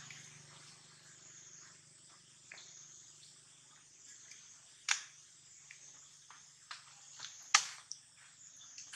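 Quiet forest background with a steady high insect hum, broken by scattered sharp clicks and crackles. The two loudest come about five seconds in and about two-thirds of the way through.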